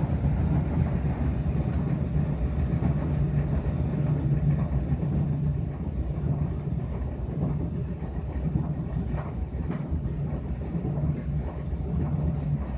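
Maytag Bravo electric dryer running with its drum turning: a steady rumble and low motor hum with scattered light clicks, and no squeal from the newly fitted ball-bearing idler pulley.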